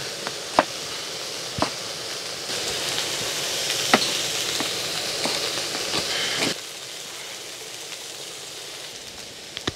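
Food sizzling in a pan over a fire: a steady hiss with a few sharp crackles. The sizzle is louder in the middle and drops away suddenly about six and a half seconds in.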